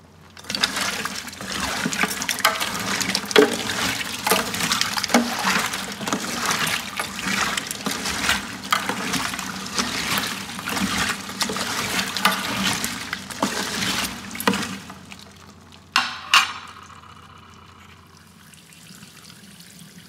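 A hand stirring live crawfish in a water-filled stainless steel sink: splashing water with many small clicks and rattles of shells. The stirring stops about fifteen seconds in, followed by two sharp knocks and a quieter stretch.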